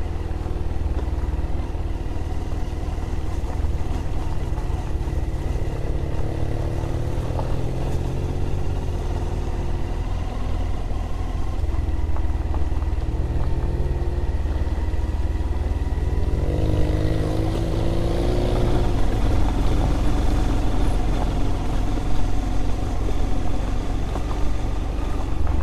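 Honda motorcycle engine running while riding along, its note rising and falling with the throttle and climbing noticeably about 17 seconds in.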